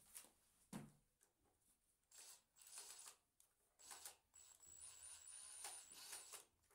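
Faint clicks and scrapes of a screwdriver bit turning a salvaged Torx screw into a plastic conduit clip on the ceiling, in short irregular bursts.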